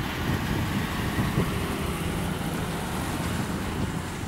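Sugar cane harvester working a row with a tractor-drawn bin trailer alongside: their engines run steadily under a dense rushing noise from the cutting and loading, with no breaks.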